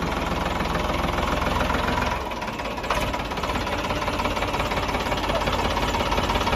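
Ford 3610 tractor's three-cylinder diesel engine running steadily; its note changes about two seconds in, with a short dip in level and a click just after.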